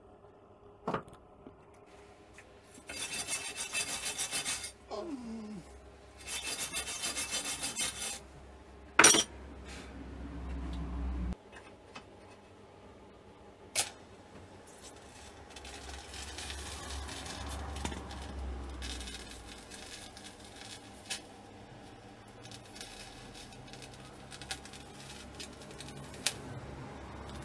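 TIG welding arc running on a steel box section: two short hissing bursts early on, a sharp clack about nine seconds in, then a steadier buzzing hiss through the second half as a weld is run.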